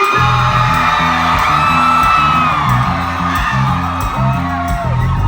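Live rock band starting a song: a repeating low bass riff kicks in, with the crowd whooping and cheering over it.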